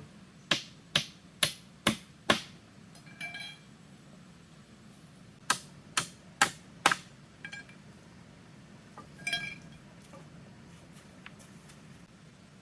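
Sharp tool strikes, a run of five and then a run of four, about two a second. Between the runs come short ringing chirps.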